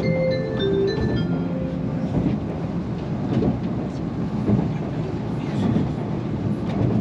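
Shinkansen onboard chime: a short melody of bell-like tones that ends about two seconds in and signals that an announcement is about to be made. After it comes the train's steady running rumble inside the car, with a few sharp wheel clicks.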